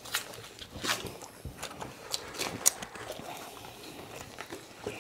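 People eating melted ice cream: scattered lip smacks, slurps and small clicks, irregular and fairly quiet.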